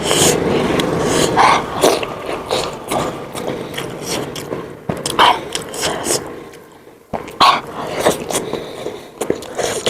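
Close-miked mouth sounds of someone eating momos: chewing with irregular wet clicks and smacks, a few louder than the rest.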